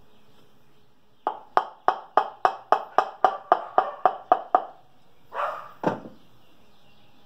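A piston being tapped down into an air-cooled VW cylinder barrel through a ring compressor: about a dozen light, even taps, about four a second, each with a short metallic ring. A rustle and a dull thud follow near the end.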